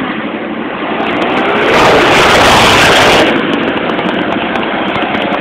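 125 cc stock-class racing motorcycles running, their engine noise swelling loud for about a second and a half from just under two seconds in, then easing back.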